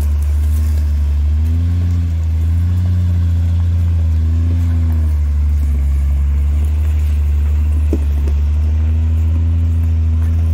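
Shaktiman truck's diesel engine pulling a full load of firewood up a rough dirt track at crawling speed, a loud, steady low drone whose pitch rises and dips slightly as the driver works the throttle.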